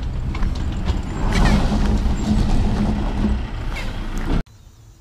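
Semi truck's diesel engine running loud as the truck moves off, with a brief hiss about a second and a half in. The sound cuts off suddenly about four and a half seconds in.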